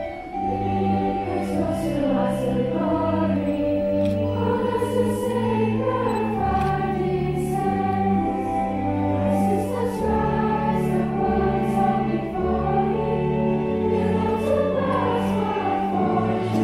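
A large crowd of schoolgirls singing a song together, over held low accompaniment notes that change every couple of seconds.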